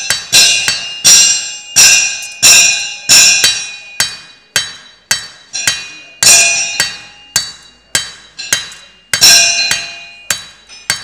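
Hand hammer striking a thin copper strip on a steel anvil, about two blows a second in an uneven rhythm, each blow followed by a high ringing from the anvil that fades before the next.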